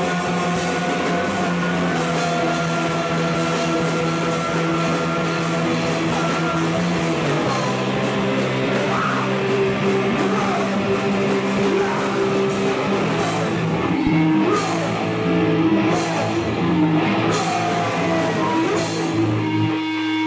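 Rock band playing live: electric guitar, bass guitar and drums with a steady beat. Near the end the drums drop out, leaving a held chord ringing.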